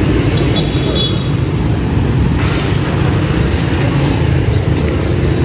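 Busy street traffic: motorcycles and motor tricycles running past, a dense low engine rumble. A rougher hiss joins about halfway through.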